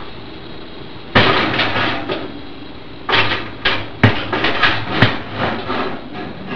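Kitchen clatter of hard things being handled: a loud knock and rattle about a second in, then a quick run of knocks and rattles with two sharp clicks.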